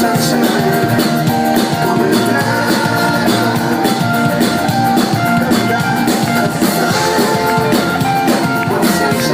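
Live band music: drum kit and guitar playing an instrumental stretch of a rock-pop song, loud and steady, without vocals.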